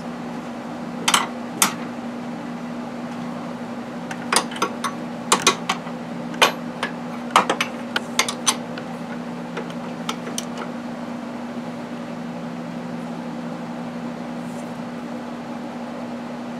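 Scattered metal clicks and clinks of a socket ratchet and wrench working the bolt at the rear shock's swing-arm mount, over a steady low hum; the clicks stop about ten seconds in.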